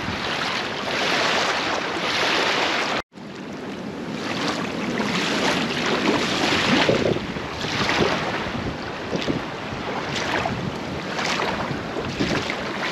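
Small waves lapping over a pebble shore, washing in every second or so, with wind buffeting the microphone. The sound drops out for an instant about three seconds in.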